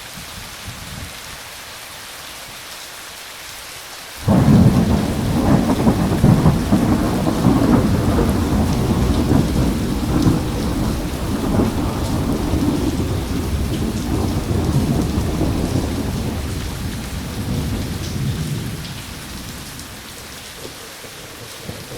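Steady rain with a thunderclap about four seconds in that starts suddenly and rolls on as a long rumble, dying away over some fifteen seconds until only the rain is left.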